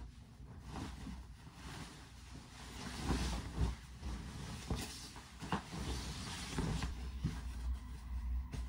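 Bedding fabric rustling and swishing as a duvet cover and comforter are pulled, shaken and stuffed together by hand, with several soft thumps as the bedding lands on the mattress.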